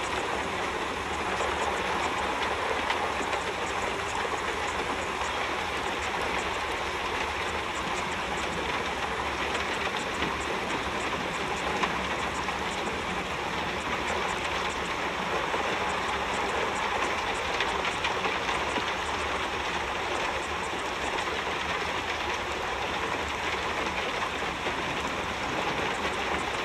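Steady rushing noise with a faint crackle, evenly spread from low to high, that does not change.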